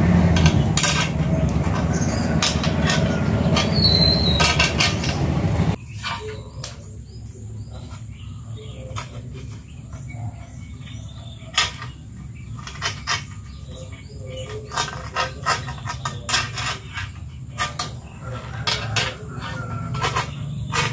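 Scattered clicks and taps of handling as a strip of tyre inner-tube rubber is stretched and wrapped tightly around an aluminium pipe handle. Over the first six seconds a steady low hum runs under it and cuts off suddenly.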